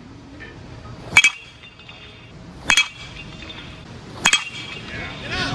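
A BBCOR baseball bat hitting pitched baseballs three times, about a second and a half apart. Each contact is a sharp ping with a short ringing tail.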